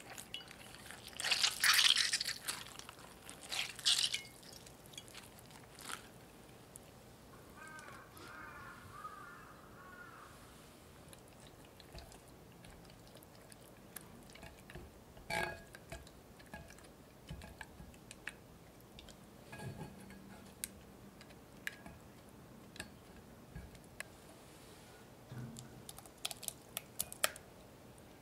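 Water splashing and dripping as softened gelatin sheets are squeezed out of ice water in a glass dish, loudest in the first few seconds. Then soft scrapes, clicks and a few knocks of a silicone spatula stirring thick strawberry compote in a saucepan.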